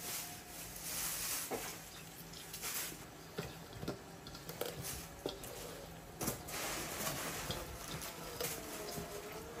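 Kitchen preparation sounds: water running and splashing on and off, with scattered clinks and knocks of dishes and utensils.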